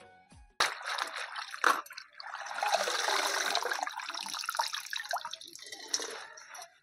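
Water splashing and dripping as hands swish leafy ropa bhaji greens around in a tub of water and lift dripping handfuls out. Two sharp splashes come about half a second and a second and a half in, then a longer stretch of sloshing and dripping.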